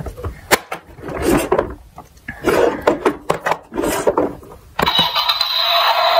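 Small toy cars clattering and scraping as they roll down a slope, with a string of sharp knocks. Near the end a steady electronic sound with several held tones starts suddenly.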